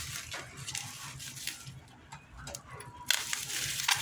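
Parcel packaging rustling and crinkling as it is handled, with scattered small clicks, going quieter for a moment, then a sudden sharp knock about three seconds in.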